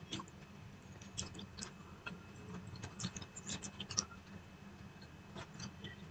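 Faint eating sounds of a person eating rice and dal by hand from a plate: scattered small clicks and smacks of fingers working the food and mouth chewing, with one sharper click about four seconds in, over a low steady hum.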